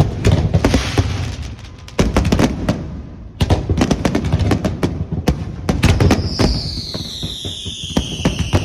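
Aerial fireworks going off in quick succession, sharp bangs and dense crackling. From about six seconds in, a whistling tone slowly falls in pitch over the bangs.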